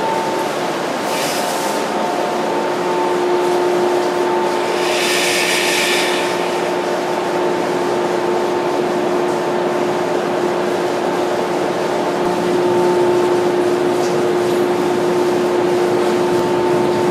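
A 415 series electric train standing at a platform with its doors open: its onboard equipment hums steadily on two tones over a broad whir. A short hiss sounds about five seconds in.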